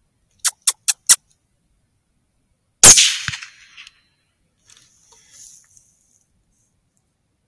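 A single Howa .243 rifle shot fired at a fox, loud enough to clip and trailing off over about a second, with a dull low thud about half a second after it. Four quick sharp clicks come a couple of seconds before the shot.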